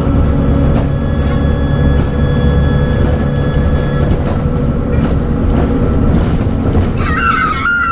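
Dennis Trident double-decker bus engine running under way, with a steady high turbo whistle over the engine drone that fades out about halfway through. Near the end a new, wavering high whine comes in.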